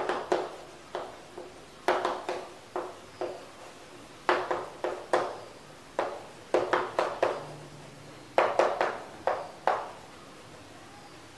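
Chalk writing on a chalkboard: clusters of short taps and scratches as letters are written, group after group.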